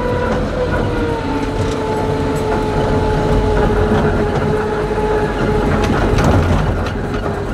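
Cabin noise of the Yörük 4x4 armoured vehicle on the move: a low rumble with scattered rattles and clicks, over a steady high whine that dips slightly in pitch about a second in and then holds.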